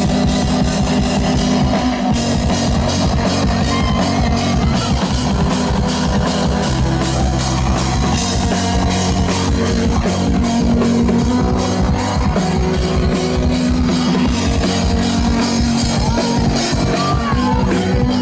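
Live band instrumental with acoustic drum kit and synthesizer, played loud with a steady, driving beat and held low synth notes.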